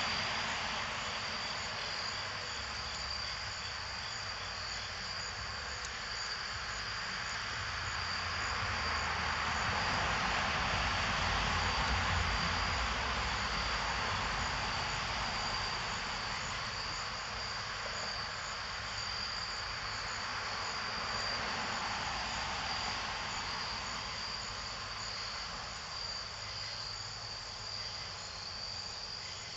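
Crickets chirping in a steady high trill, over a broad distant rushing noise that swells about a third of the way in and slowly fades.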